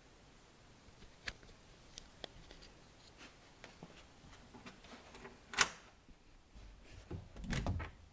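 Scattered faint clicks and knocks, a louder rustle about five and a half seconds in, and a run of low bumps near the end.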